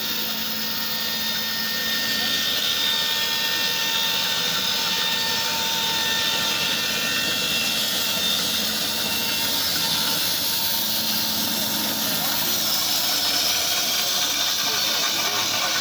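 Band sawmill running steadily, a continuous mechanical whine with several high, unchanging tones.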